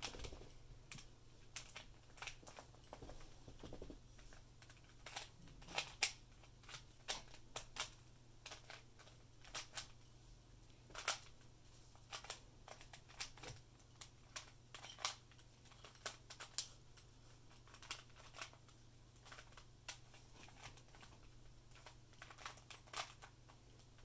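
3x3 Rubik's cube being turned by hand in a speed solve: quick, irregular plastic clicks and clacks as the layers snap round, several a second with short pauses between bursts of turns.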